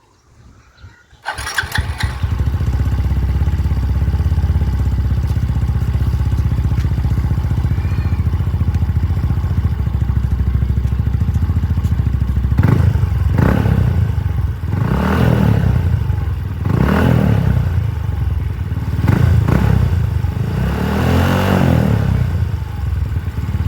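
Yamaha Mio i 125 scooter's single-cylinder four-stroke engine, breathing through an aftermarket REV exhaust pipe with its adjustable outlet set to mid, starting about a second in and idling steadily, then revved up and let back down five times in the second half.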